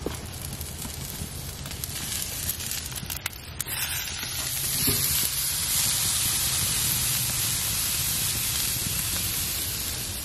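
Tomahawk steak sizzling on a hot grill grate over embers, a steady hiss that grows louder about four seconds in. A few sharp clicks come in the first seconds.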